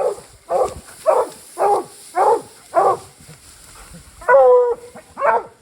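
Coonhounds tree-barking: a steady chop of barks about two a second, then after a short pause a longer drawn-out bawl and one more bark. This is the sound of hounds with a raccoon treed.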